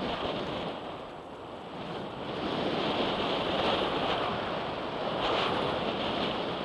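Wind rushing over a helmet camera's microphone, mixed with the rumble of mountain-bike tyres on a loose gravel track at speed. The rush swells louder a couple of seconds in as the pace picks up.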